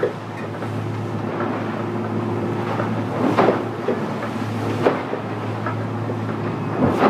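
Twin outboard engines of a 9 m Cheetah power catamaran running steadily, heard from inside the cabin, as the hull pounds into short, steep chop with several heavy thuds about a second or two apart.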